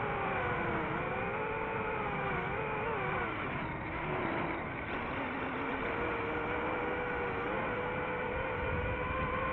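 FPV drone's electric motors and propellers whining at several pitches that glide together with the throttle, dipping about midway and rising again near the end.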